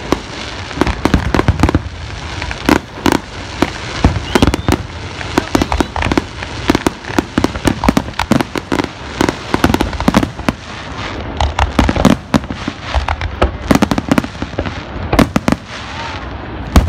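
Fireworks display: aerial shells bursting one after another, many sharp bangs a second at irregular intervals.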